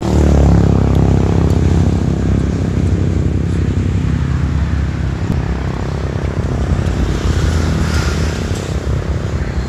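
Benelli TRK 502X's 500 cc parallel-twin engine idling steadily, a low exhaust rumble.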